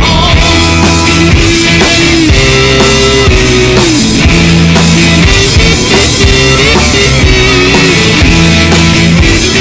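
Loud background music with a steady beat.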